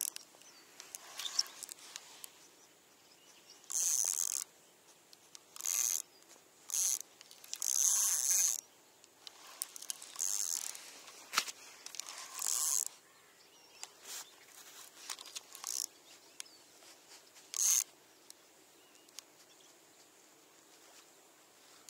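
Spinning reel being cranked in short bursts, a brief whirring each time the handle turns, as a lure is retrieved stop-and-go. There is one sharp click about halfway through.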